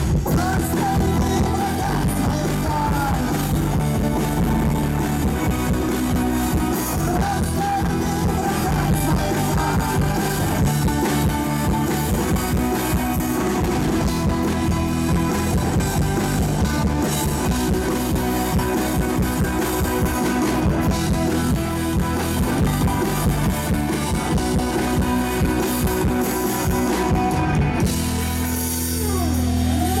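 Live rock band playing loudly through a stage PA: electric guitars and drum kit with a violin on top. Near the end the music settles into one long held chord.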